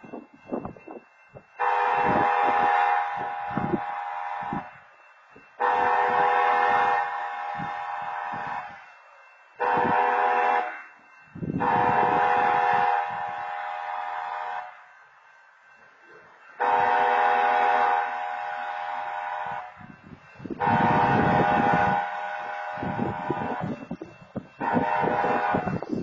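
Union Pacific 6514's locomotive horn sounding the grade-crossing signal, long, long, short, long, played twice through. Each long blast is loud at first and then eases off.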